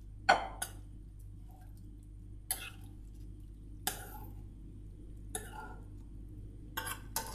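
Steel spoon knocking and scraping against a frying pan as cooked squid is pushed out into a glass bowl: about seven short clinks spread out, the loudest near the start, over a steady low hum.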